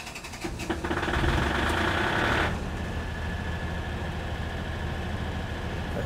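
Biogas-fuelled generator engine starting up: a few clicks, then a louder run for about a second and a half that settles into a steady running sound with a faint whine.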